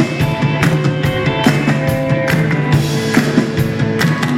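Live rock and roll band playing the instrumental intro to a song, with a steady drum beat under guitar and bass, before the singing comes in.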